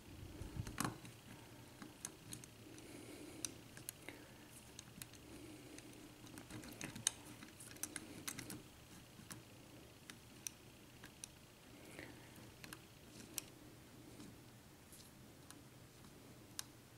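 Faint, irregular clicks and light scraping of a lock pick working the pins of a Serraller 5-pin euro cylinder, single-pin picking.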